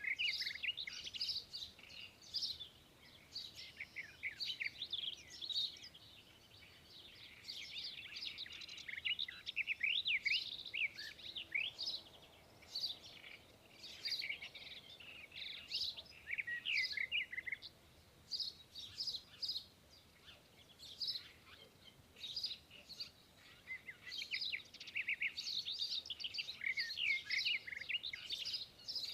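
Small birds chirping: many rapid, overlapping high chirps in clusters, with short lulls around a quarter and two thirds of the way through.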